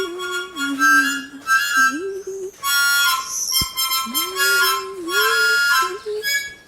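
Music: a reedy wind-instrument melody that bends up and down, over held chord-like notes.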